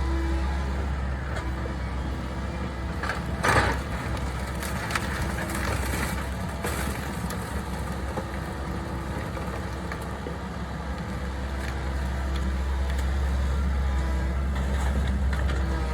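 Diesel engine of a heavy construction machine running steadily, with a few knocks and scrapes over it, the loudest about three and a half seconds in.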